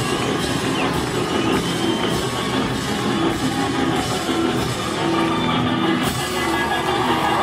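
Live rock band playing loudly: drum kit, electric guitars and electric bass.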